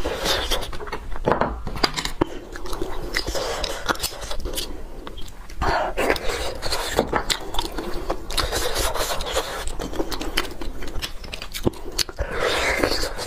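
Close-miked eating of bone marrow: wet sucking and chewing, with short clicks and scrapes of a small utensil scooping the marrow out of the cut bone.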